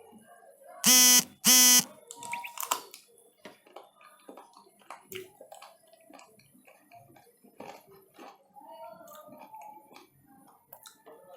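Two short, loud buzzing beeps at the same steady pitch, about half a second apart, about a second in. Faint clicks and smacks of eating by hand follow.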